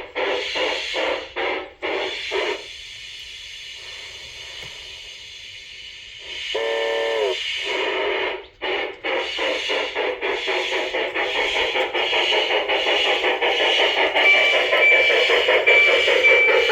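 Sound unit of an LGB G-scale 2-6-0 Mogul model steam locomotive playing its steam effects through a small speaker. Rhythmic chuffing gives way to a few seconds of steady steam hiss, then a short whistle blast. The chuffing then resumes and quickens, with a bell starting to ring near the end.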